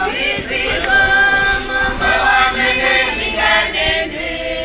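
A small group of voices singing together without instruments, holding notes that change every second or so.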